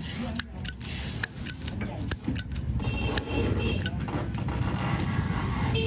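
Zippo lighter being handled: a run of sharp metallic clicks and clinks as the hinged lid is flipped open and snapped shut, some with a brief ring. Under it runs a steady low rumble.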